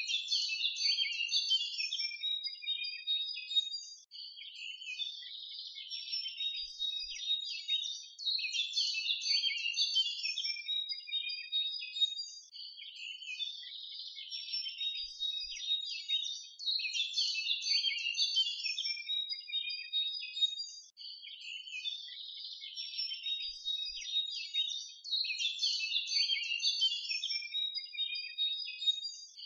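Birds chirping and twittering densely and without a break, the same stretch of song repeating about every eight seconds like a looped track.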